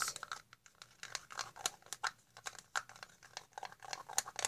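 Irregular run of small clicks and scrapes from stirring thick shampoo in a cup, the utensil tapping and scraping against the sides.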